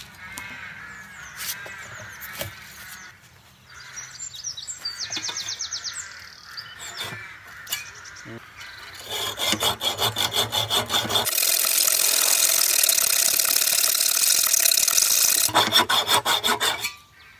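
Hacksaw cutting through a rusted, seized bolt where it holds a wooden plank to a cast-iron bench leg. About nine seconds in, rapid back-and-forth rasping strokes begin. They run together into a loud continuous rasp for about four seconds, then separate into distinct strokes again before stopping near the end.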